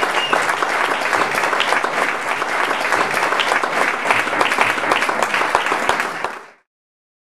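Audience applauding, many hands clapping in a dense patter, fading out quickly about six and a half seconds in.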